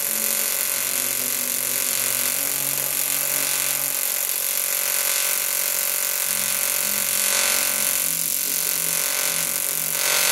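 TIG welding arc from a Jasic AC/DC TIG welder burning on aluminium strips: a steady, loud hiss with a fixed hum through it, the current just turned down to 60 after running too hot.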